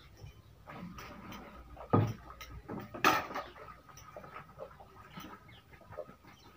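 Scattered small clicks and knocks, with two sharper, louder knocks about two and three seconds in.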